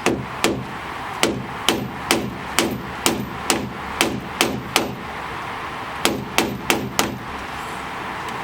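Hammer striking the end of a flathead screwdriver to drive its blade into the slots of a one-way (tamper-proof) screw, so that the screw can be turned out. About eleven sharp taps at roughly two a second, a short pause, then four quicker taps.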